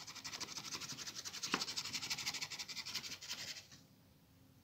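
Flour being shaken out over a cutting board, a soft, fast, even rasping rhythm that stops about a second before the end.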